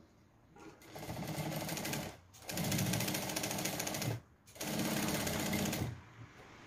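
Sewing machine stitching in three short runs, each a second or two long, with brief stops between; its needle goes up and down in a rapid, even rhythm. The first run is a little quieter. The stitching is topstitching along a seam.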